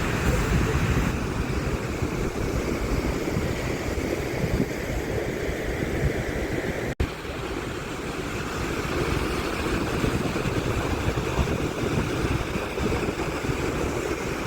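Godafoss waterfall's falling water rushing in a steady, loud noise, with a brief break about halfway through.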